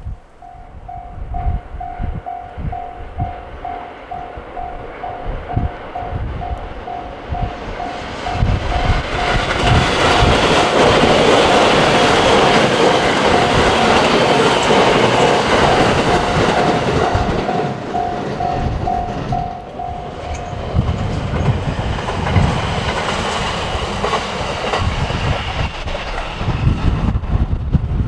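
Japanese level-crossing warning bell ringing in even pulses, about two a second, while a train passes over the crossing. The train's rumble of wheels on rail swells, is loudest for several seconds in the middle and fades as the bell stops about two-thirds of the way in. Wind buffets the microphone with low thumps throughout.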